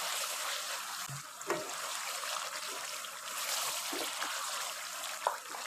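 Mutton frying in ghee in a wok, sizzling steadily as a wooden spoon stirs it, with a few light knocks of the spoon against the pan. The yogurt's water has cooked off, so the meat is now frying in the fat.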